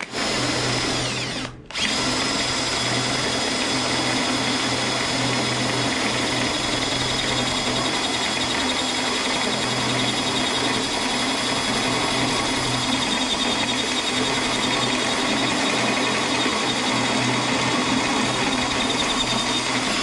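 Cordless drill running steadily as a step bit cuts a hole through the steel side of a flatbed, with a steady high whine. The drill stops briefly about a second and a half in, then runs on without a break.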